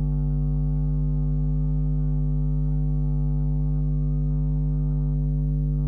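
Steady electrical hum with a stack of overtones, unchanging throughout, as from mains interference on the recording.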